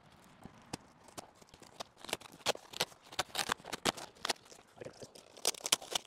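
Long cardboard box being opened by hand: flaps pulled and bent back, the cardboard crackling and knocking in irregular sharp clicks, sparse at first and busier from about two seconds in.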